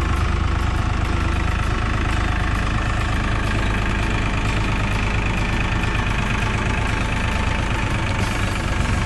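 Tractor engine running steadily on a tractor-mounted mini combine harvester, the Panesar TMC-700.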